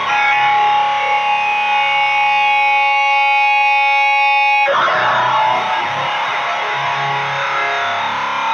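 Electric guitar through a Boss HM-2 distortion boosted by a Boss SD-1 into a Jet City JCA22H tube amp, giving the heavy, saturated HM-2 'chainsaw' tone. A chord rings out for about four and a half seconds, then gives way abruptly to dense, rough riffing with pulsing low notes.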